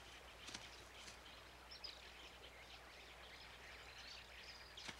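Near silence: a faint forest ambience with a few soft ticks and a couple of short, high chirps like distant birds.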